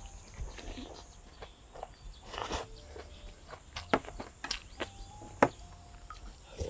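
Close-miked eating sounds: chewing, a slurp of chilled acorn jelly soup from a wooden spoon, and sharp clicks of utensils and mouth. A steady high insect drone runs underneath.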